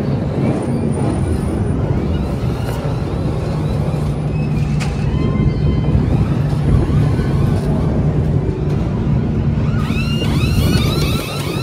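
NASCAR race trucks' V8 engines running loud and steady at speed. A cluster of rising whines comes in near the end.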